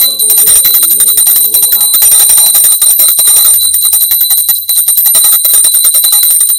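Small brass puja hand bell (ghanti) rung rapidly and continuously, a bright, high, steady ringing, with music underneath.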